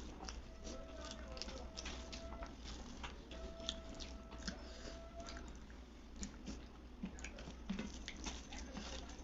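Close-miked chewing of a rice and dal meal: wet mouth smacks and many short clicks in an irregular run. A faint steady tone comes and goes behind it.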